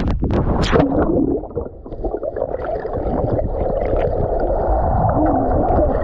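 Water heard from inside an action camera plunged into a waterfall pool: a splash as it goes under, then a dull, muffled rushing and gurgling of the churning water, with the high end cut off by the water.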